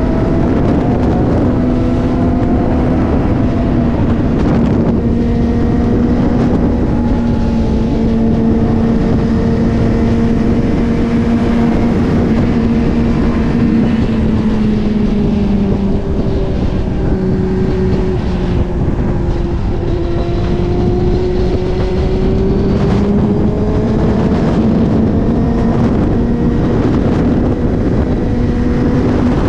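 Suzuki GSX-R1000 inline-four engine running steadily at highway speed, with wind rushing past the rider. The engine note eases off a little about halfway through and climbs back up near the end.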